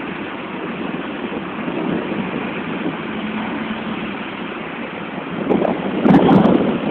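Road vehicle noise with wind on the microphone, a steady rushing din that swells louder about five and a half seconds in.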